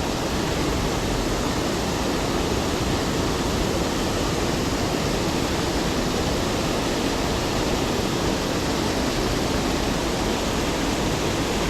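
Waterfall on a creek, a steady, unbroken rush of falling water.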